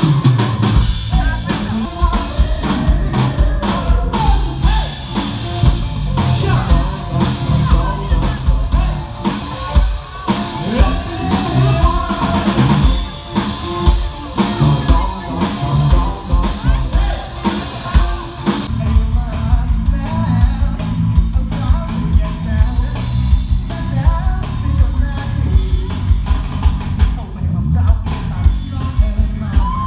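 Live rock band playing loud, with a steady drum-kit beat and a singer.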